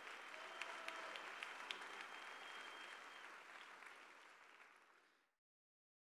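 Audience applauding, faint, with individual claps standing out; it fades and cuts off to silence a little after five seconds.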